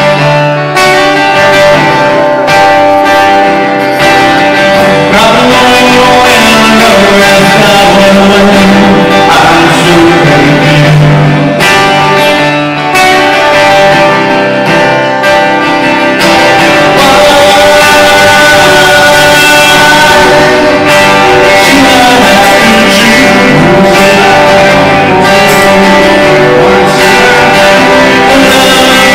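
Live rock band playing loud through a PA: strummed acoustic guitar, electric guitars and a drum kit, with a man singing.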